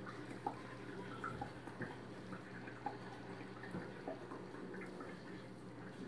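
Hydrogen peroxide poured from a bottle in a thin stream into a stainless steel bowl of baking-soda solution: faint, irregular drips and splashes over a steady low hum.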